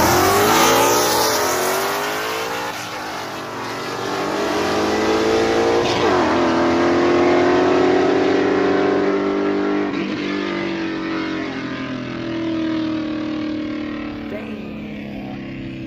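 A race car accelerating hard from the start of a street drag race, its engine revving up through the gears. The pitch climbs, drops at each upshift about every four seconds and climbs again, and grows fainter as the car runs away down the street. Loud as hell.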